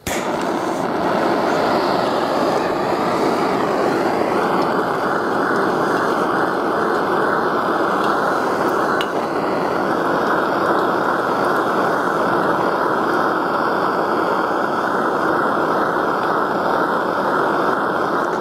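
Handheld gas blowtorch comes on abruptly and burns with a steady hiss of flame. It is heating an aluminium piston to expand it so the gudgeon pin will push through.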